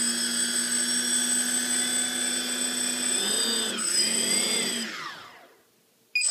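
Hexacopter's brushless outrunner motors spinning without propellers under radio throttle, a steady high whine. About three seconds in the pitch wavers up and down, then the motors wind down to a stop, with a brief rising-and-falling spin-up blip right at the end. This is a bench test of the motors after one motor's wires were swapped to reverse its direction.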